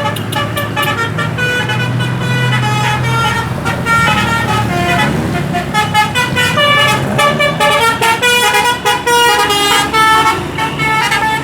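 A bus's multi-tone 'telolet' musical horn of the Basuri type playing a long run of quick, changing notes like a tune, over the low hum of the bus engine.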